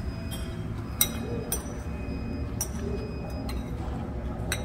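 Spoon clinking against a ceramic soup bowl several times while the last of the broth is scooped up, the sharpest clink about a second in.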